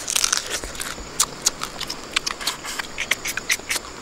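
Cooked crab being eaten up close: shell crunching and chewing with wet mouth clicks and smacks, a quick, irregular run of crisp clicks.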